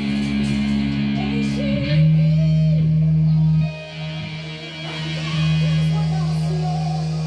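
Band music in rehearsal: long held guitar chords over a low bass note, changing chord about two seconds in and dropping in level briefly past the middle.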